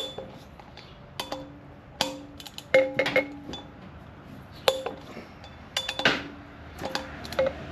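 Click-type torque wrench and socket going over the rear wheel's bolts a final time: a string of sharp metal clicks and clinks, several of them followed by a short metallic ring.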